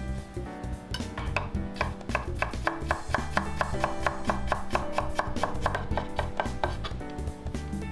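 Kitchen knife chopping on a cutting board in quick, even strokes, about four or five a second, starting about a second in and stopping shortly before the end, over background music.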